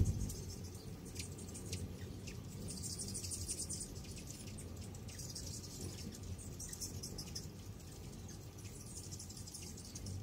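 A crowd of hummingbirds at feeders: bouts of high-pitched chittering and squeaky chip calls that come and go every second or two, over a steady low hum.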